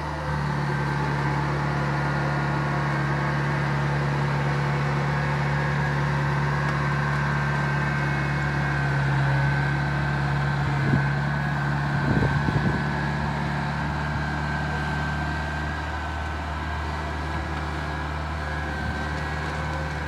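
Tracked rice combine harvester's engine running steadily as the machine crawls across railway rails, with a short cluster of knocks about halfway through.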